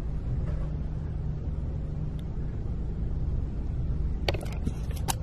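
A steady low rumble, with two sharp knocks a little under a second apart near the end.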